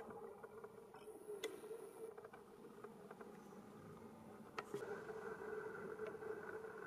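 Faint, steady engine drone of a distant jet aircraft, with a higher hum joining about five seconds in and a couple of faint clicks.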